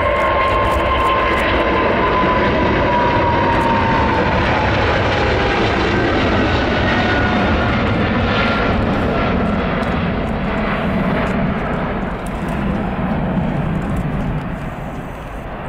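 Boeing 777-300ER's twin GE90-115B turbofans at takeoff thrust as the jet lifts off and climbs away: a loud, steady roar with a whine that slides down in pitch over the first few seconds, easing slightly near the end.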